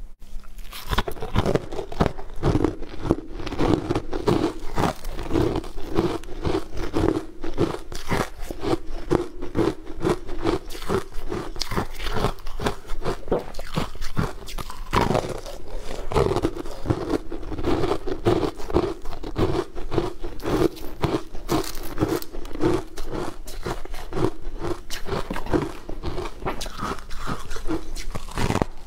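Close-miked crunching and chewing of frozen food chunks: a steady run of crisp bites and crunches, several a second, picked up by a clip-on microphone.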